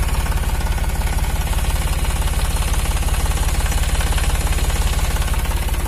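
Iseki NT540F tractor's diesel engine idling steadily, a rapid even chugging.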